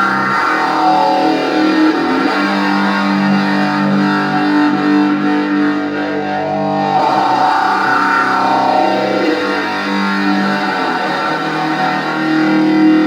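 Electric guitar, a Leo Jaymz LP Custom-style, played through an Orange amp in a slow doom riff: low chords and notes held and left ringing for a few seconds each.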